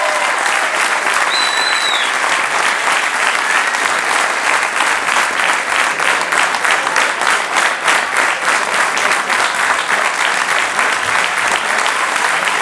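Audience applauding steadily, with a short whistle from the crowd about a second and a half in.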